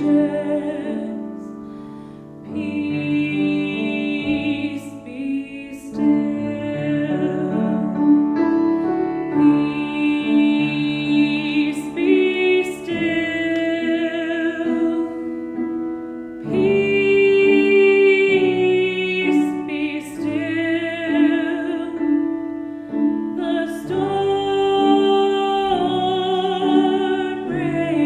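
Slow worship song: sustained singing with vibrato over piano accompaniment, in long phrases with short breaks between them.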